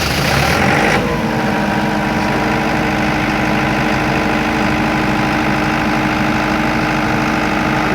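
Diesel generator engine just after starting: a brief flare of noise in the first second as it comes up to speed, then it settles into steady running. It now starts normally with its control module switched from auto to manual.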